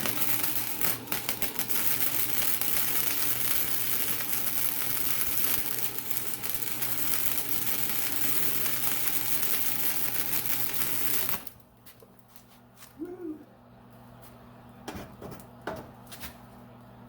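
1987 Harbor Freight flux-core wire-feed welder arc crackling steadily for about eleven seconds, then cutting off abruptly as the trigger is released. A steady low welder hum runs underneath, and a few light clicks follow.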